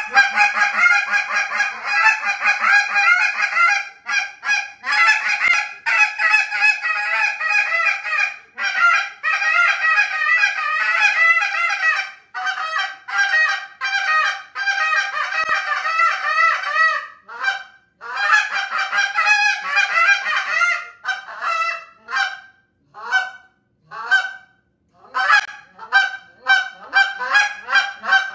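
JT Calls "Short Fuse" goose call, blown by mouth, imitating Canada goose honks and clucks. It plays a fast, nearly unbroken run of notes for about seventeen seconds, then shorter bursts and single spaced honks toward the end.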